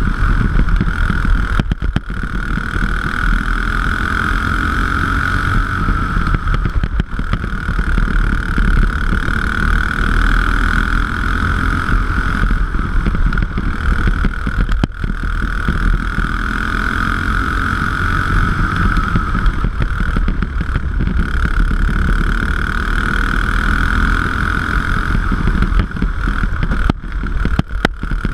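Single-cylinder racing kart engine running hard, heard onboard from the driver's seat, its strong steady note easing off briefly several times before picking up again.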